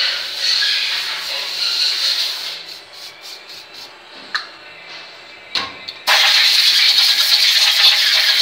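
Aerosol can of solvent hissing as it sprays an aluminium cylinder head, with a couple of short spurts a little later, cleaning and driving moisture off the head before it is preheated for TIG welding. About six seconds in, a compressed-air blow gun starts with a sudden loud steady hiss, blowing out the combustion chambers.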